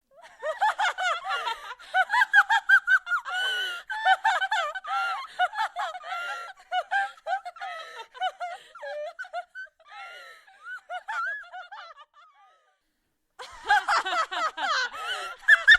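A woman's crazy laughter: rapid, high-pitched bursts of laughing that thin out and stop about twelve seconds in, then start up again loudly after a short pause.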